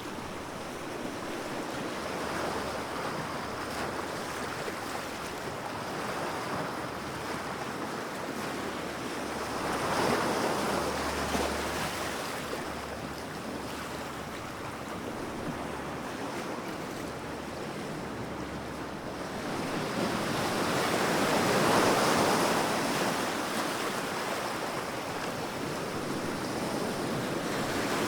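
Large ocean waves breaking on the shore with a steady rush of surf between them; the sound swells as a wave breaks, once about ten seconds in and again more broadly a little after twenty seconds.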